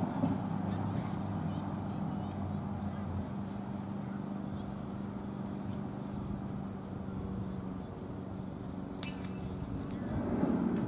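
Steady low hum over faint, indistinct background noise, with a single sharp click about nine seconds in and the noise swelling louder near the end.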